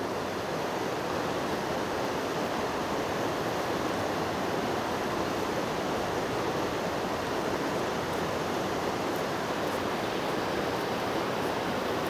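River water rushing over rapids: a steady, even rush.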